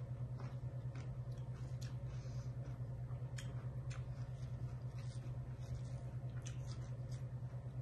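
A steady low hum, with faint, scattered clicks and small rustles over it.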